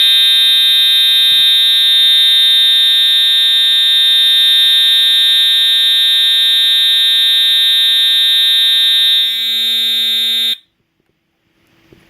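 EST Edwards Integrity 7577AT mechanical fire alarm horn sounding a steady continuous tone, really loud, with its jumpers removed for full volume. It cuts off suddenly about ten and a half seconds in.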